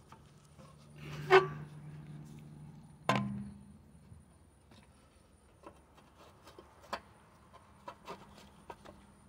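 Plastic air-filter housing being fitted by hand onto a Honda HR215 lawnmower's carburetor: two sharp knocks, about one and three seconds in, then light clicks and taps as it is handled.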